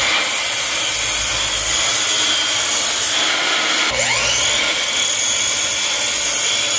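Miter saw running and cross-cutting the ends of a planed pine board. About four seconds in the motor dips and spins back up with a rising whine.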